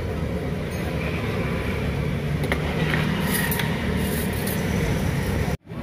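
Steady low rumble of street traffic, with a few light metallic clinks of a ladle against the broth pot and bowl as bakso is served. The sound cuts off suddenly near the end.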